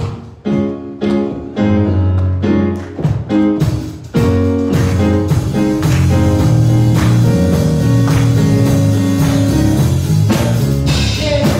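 Instrumental gospel-style music with drum kit, bass and keyboard playing a steady beat, getting fuller and more sustained from about halfway.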